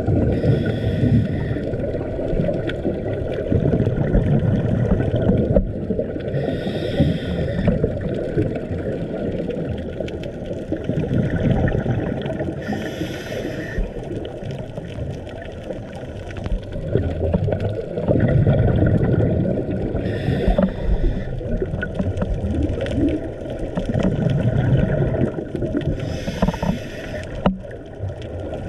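Underwater recording of a scuba diver breathing: the regulator's exhaled bubbles come in a short bubbling hiss about every six seconds, five times, over a steady low muffled underwater rumble.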